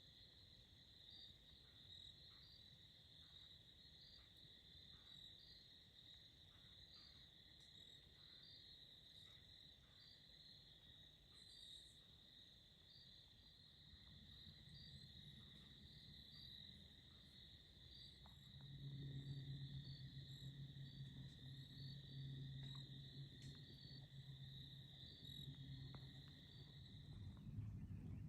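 Faint, steady insect trill, a high continuous tone with faint regular pulses, that cuts off near the end. A low hum comes in about halfway and gets louder in the last third.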